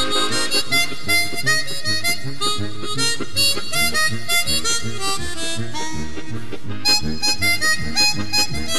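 Background music led by a harmonica playing a melody of short notes over repeating low notes.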